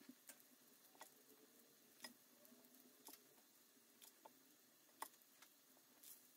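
Near silence, with faint sharp clicks about once a second from a stainless squeeze-handle scoop portioning ground beef into balls in a glass bowl.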